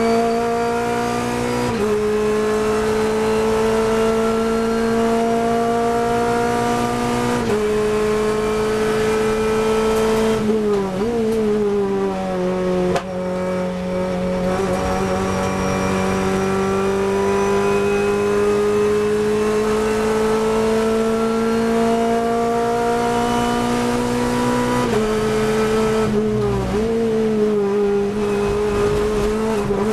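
Renault Clio Cup race car's four-cylinder engine under hard acceleration, heard from inside the cockpit. Its note climbs slowly with small steps at the gear changes, falls sharply about ten seconds in as the car slows for a corner, then climbs steadily for a long stretch before quick jumps and drops in pitch near the end.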